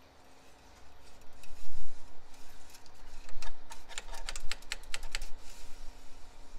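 A quick run of about a dozen light clicks, roughly five a second, from hands working parts on top of the truck engine while the oil is checked. A low rumble comes before them.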